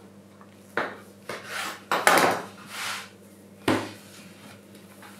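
A knife cutting a piece from a loaf of dense mustaccioli dough and knocking and scraping on a wooden pastry board: about five separate clunks and scrapes, the loudest about two seconds in.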